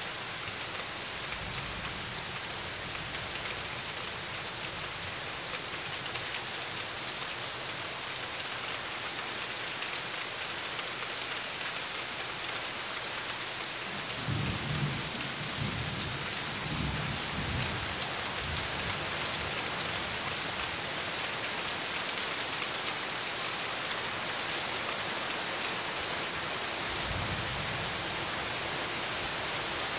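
Steady hard rain falling on trees and ground, an even hiss. Low rumbles of receding thunder come through around the middle and again near the end.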